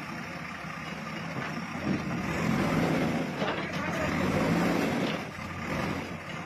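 Backhoe loader's diesel engine running and revving up under load as it raises its front bucket. There is a brief clatter of debris tipping into a dump truck about three and a half seconds in.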